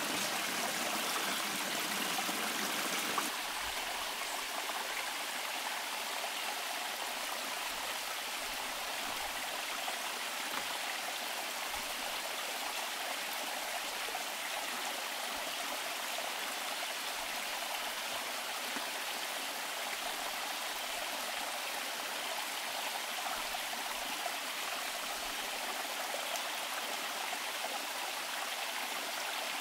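Water of a rocky forest stream rushing steadily over boulders, a little quieter from about three seconds in.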